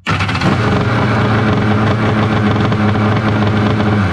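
Kawasaki 1100 two-stroke triple jet-ski engine starting abruptly and running steadily at a constant speed.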